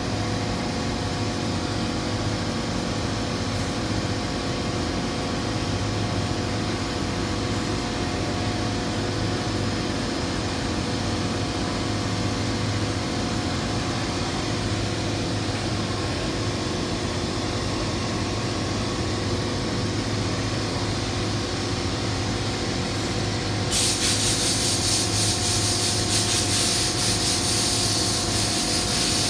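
Steady machine hum with several constant tones from the paint spray booth's ventilation and equipment. About 24 seconds in, a loud hiss of a paint spray gun starts and keeps going.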